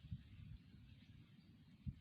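Near silence: a faint steady hiss with three brief soft low bumps.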